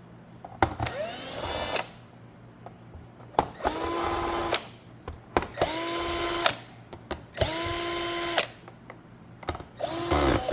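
Cordless driver backing out the case screws of a jump-starter pack, in about five short runs of roughly a second each. Each run winds up quickly to a steady whine and stops, with sharp clicks in between.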